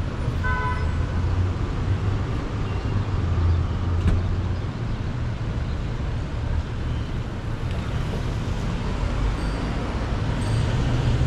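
Road traffic on city streets: a steady low rumble of engines and tyres. About half a second in, a brief pitched tone sounds over it.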